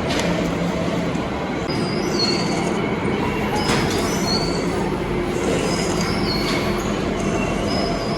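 Metal lathe running with steady machining noise, with short high-pitched squeals coming and going several times as the tool works the steel coupling.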